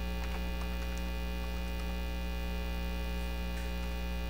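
Steady electrical mains hum, a low buzz with many evenly spaced overtones, with a few faint keyboard key clicks as text is typed.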